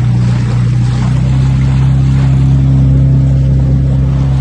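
A boat's engine running at a steady speed, an even hum.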